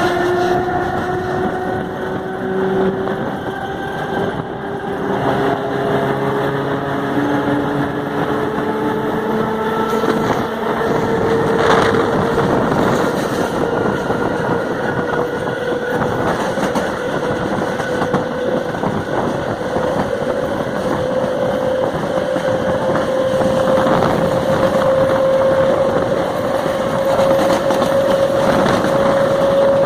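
FNV/Cobrasma Série 4400 electric train's traction motors growling loudly, a whine that climbs slowly and steadily in pitch as the train gathers speed, over the rumble of the running train.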